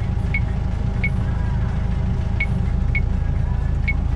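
Engine of a Tuman-3 self-propelled sprayer running steadily, heard from inside its cab. About five short high electronic beeps come at uneven intervals, from keypresses on the cab's guidance display.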